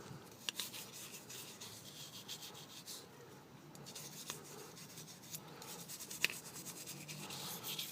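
Faint rubbing and scratching of a small brush scrubbing a RAM module's gold edge contacts with solvent, with a few light clicks along the way.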